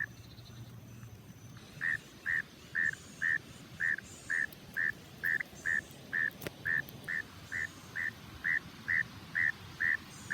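A frog calling: a steady series of short, evenly spaced notes, a little over two a second, starting about two seconds in.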